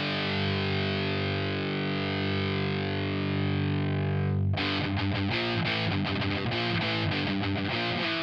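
High-gain distorted electric guitar through the Audiority L12X solid-state amp plugin, a Marshall JCM-style sim, with its boost turned on: a chord left ringing for about four and a half seconds, then a fast picked riff. With this much boost the high end turns harsh and unpleasant.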